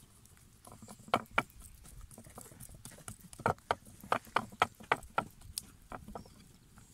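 Hands patting and slapping a round of bread dough flat on a wooden board: two pats about a second in, then a quick run of about ten pats.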